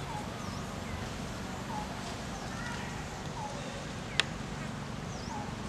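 Forest ambience with short falling animal chirps repeating every second or two, some higher and thinner, and a single sharp click about four seconds in.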